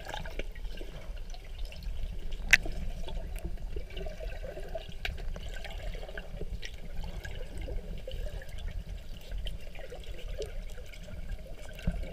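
Water heard through a camera submerged in a swimming pool: muffled sloshing and churning as a dog paddles past at the surface. One sharp click stands out about two and a half seconds in.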